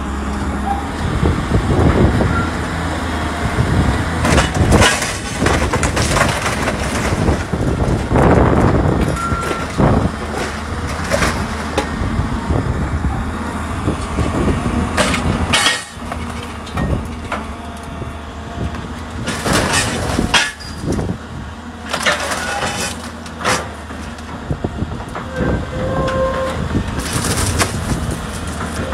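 Hydraulic orange-peel grapple crushing and tearing the sheet-metal cab of a wrecked truck: repeated crunches, bangs and scrapes of metal, with a few short metallic squeals, over the steady low running of the grapple machine's engine.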